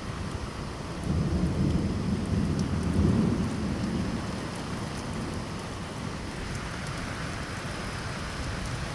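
Heavy rain falling steadily, with a rumble of thunder that builds about a second in, peaks around three seconds and dies away by about five seconds.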